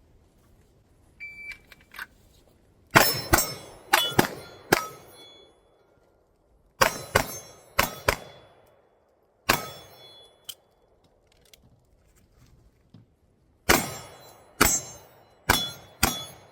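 A short electronic shot-timer beep about a second in, then about fourteen pistol shots in four quick strings. Each hit sets the steel targets ringing.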